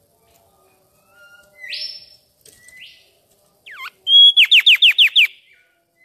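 Mangrove whistler singing: a couple of rising whistled notes, then a held whistle that breaks into a fast run of about six loud downward-slurred notes near the end.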